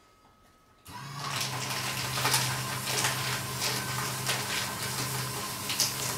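Antiva CC 234 CD cross-cut paper shredder starting about a second in as a stack of 15 sheets is fed in, then shredding it: a steady motor hum under a dense crackle of paper being cut.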